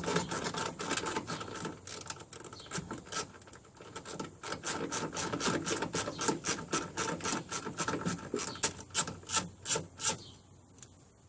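Ratchet and socket on an extension clicking as it loosens the 10 mm factory bolts of a truck's battery tray. The quick, uneven clicks run in spurts and stop near the end.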